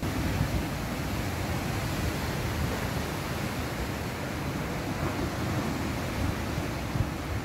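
Steady rush of sea surf on a rocky shore, an even noise with no distinct breaks of individual waves.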